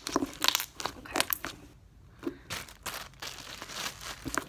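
Slime squeezed and poked by hand, making a run of small, irregular pops and crackles.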